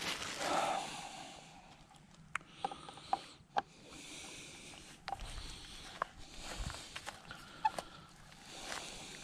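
Scattered light metallic clicks and taps as a motorcycle mirror stem and its handlebar mount are handled by hand during removal and fitting, with a brief louder sound near the start.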